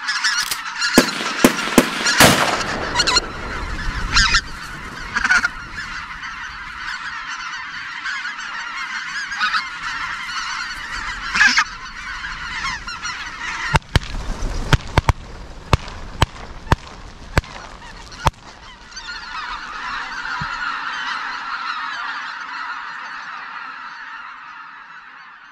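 A large flock of geese calling continuously, with several sharp bangs standing out over the calls in the first few seconds and again around the middle; the calling swells near the end, then fades out.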